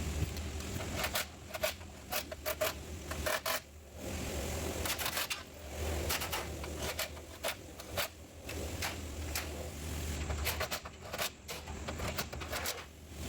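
Scattered clicks, knocks and light rattles of hand tools and car body parts being handled during reassembly, over a steady low hum.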